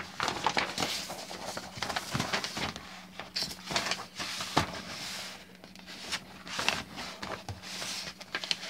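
Paper rustling and crinkling as a plastic model kit's instruction manual is handled and its pages are turned, in irregular bursts with light clicks and taps.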